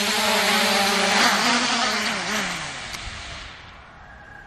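Quadcopter drone's propellers whirring as it hovers low, then the buzz falls in pitch and fades over about two seconds as the drone sets down and its motors spin down.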